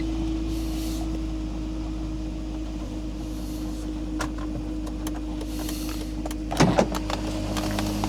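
BMW E46 engine idling steadily just after starting. About six and a half seconds in, a sudden loud double bang, the hood slamming shut.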